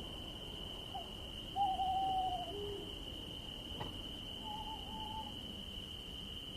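Owl hooting in several wavering calls: a short one about a second in, a longer, loudest hoot at about a second and a half, and another near five seconds. Under them runs a steady high insect trill, with one brief click near the middle.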